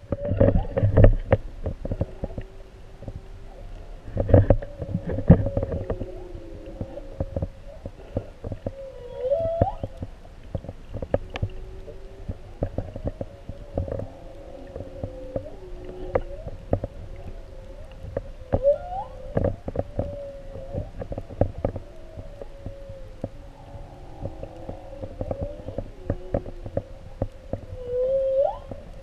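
Humpback whale song heard underwater: a long held tone with lower tones beneath it, broken about every nine or ten seconds by a rising whoop. Sharp clicks and knocks run through it, with heavy low thumps in the first five seconds.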